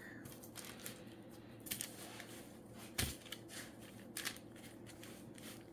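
Hands folding and tucking a sticky ball of sourdough on floured parchment paper: faint crinkling of the paper and soft dough handling, with a dull thump about three seconds in.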